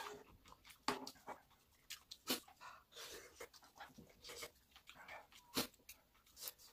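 Eating seaweed soup with a metal spoon from a pot: soft slurping and chewing, with sharp clinks of the spoon against the pot about one second, two and a half seconds and five and a half seconds in.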